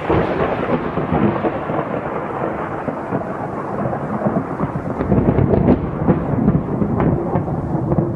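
Thunder rumbling over rain: a dense, continuous rumble, with sharper crackles starting about five seconds in.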